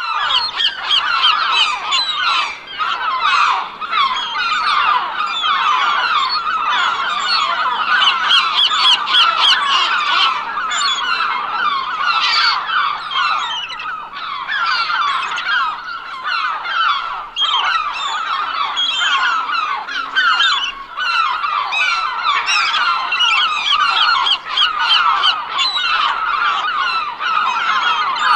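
A flock of gulls calling, many short calls overlapping without a break.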